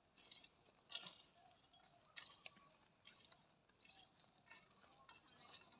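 Near silence, with faint short high chirps from a small animal or bird, some rising in pitch, and two sharp clicks about one and two and a half seconds in.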